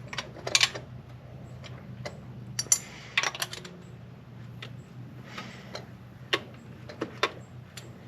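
3/8-inch ratchet clicking in short, irregular runs, with small metallic clinks, as a thermostat housing bolt is worked in a tight space.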